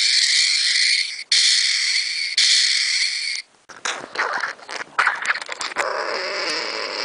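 Gunfire sound effect: three long hissing blasts, each broken off sharply, followed by a rough, ragged creature cry.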